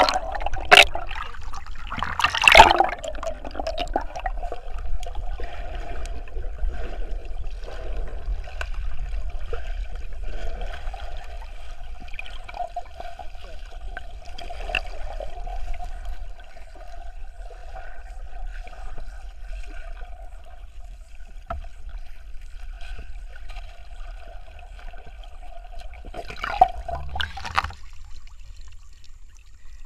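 Muffled underwater sound heard through a diving camera's housing: steady water noise and a low hum. Loud splashing about two seconds in and again near the end as the diver breaks the surface.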